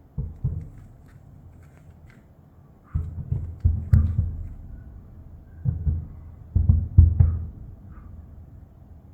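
Aerial firework shells bursting: deep booms in clusters, two near the start, a quick run of four about three to four seconds in, and another run about six to seven seconds in, each dying away over a second or so.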